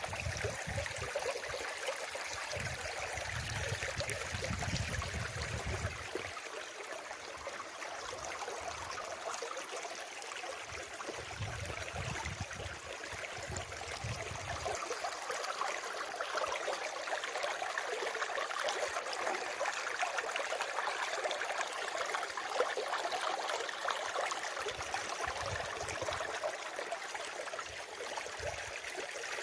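Running water, a steady stream-like rush and trickle, with intermittent low rumbles through the first half and again near the end.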